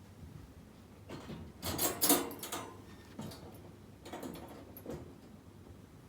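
A cat crunching dry kibble: bursts of sharp, crackly chewing, loudest about two seconds in, with smaller bursts after.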